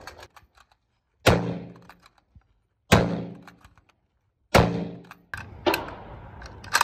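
Carcano M38 bolt-action rifle firing 6.5x52 Carcano rounds: three shots about a second and a half apart, each with a short ringing tail, and faint clicks of the bolt between them. Near the end comes a run of sharper clicks and clacks from the action being worked.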